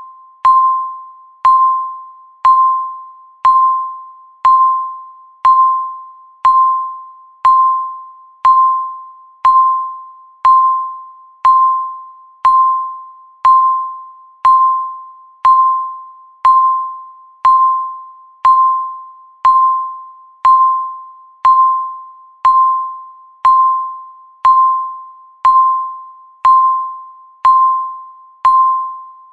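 Countdown timer beeping once a second: a short, single-pitched electronic beep that starts sharply and fades quickly, repeated evenly throughout.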